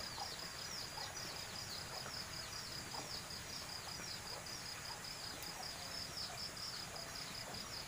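Insects chirping steadily outdoors: a quick, unbroken run of short, high chirps, several a second, over a faint background hiss.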